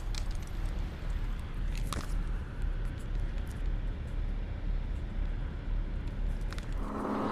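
Car idling, heard from inside the cabin: a steady low rumble with a few light clicks. Near the end a louder steady hum with a rushing sound starts up over it.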